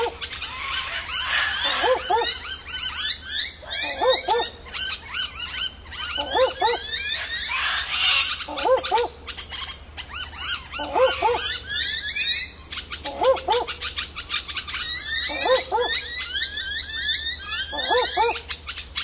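Barking owl giving its dog-like double "woof-woof" call, repeated about every two seconds, apparently calling for a mate. Dense high chirping from other birds runs behind it.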